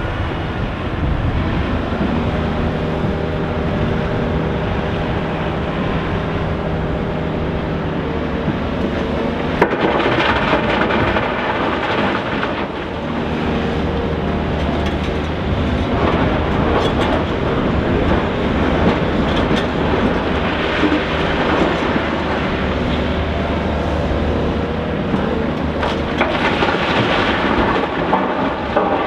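Diesel engines of a Volvo EC460BLC crawler excavator and a CAT 735C articulated dump truck running steadily under load. Crushed rock crashes and rattles as the excavator loads it into the truck's dump body, several times: about a third of the way in and again later.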